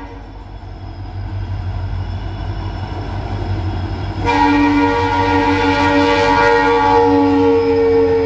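Diesel freight locomotive approaching with a low engine rumble that grows louder. About four seconds in, its air horn sounds a long, steady chord of several tones and keeps blowing.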